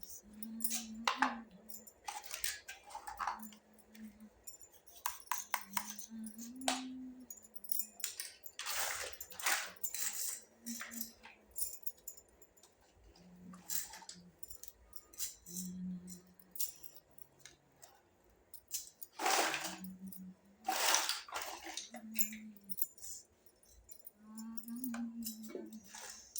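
Small plastic toy kitchen pieces clicking, tapping and rattling as they are handled and set down: irregular sharp clicks with short pauses between them.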